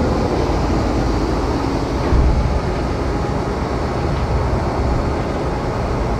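Cat 740 GC articulated truck's diesel engine running while its dump body lowers under the assisted hoist system. The revs drop back from high idle as the body nears the bottom, to spare the hoist cylinders harsh impacts.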